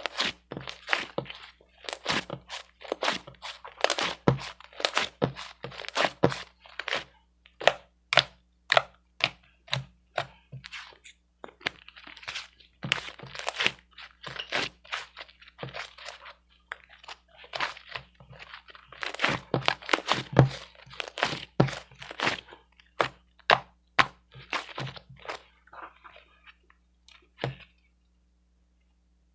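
Repeated crisp crunching and crackling, irregular and dense at times, stopping a couple of seconds before the end.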